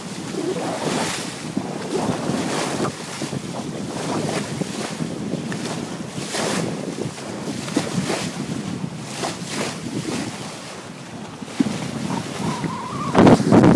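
Water rushing and splashing along the hull of a sailboat under way, with wind buffeting the microphone. The rush comes in irregular surges and grows louder near the end.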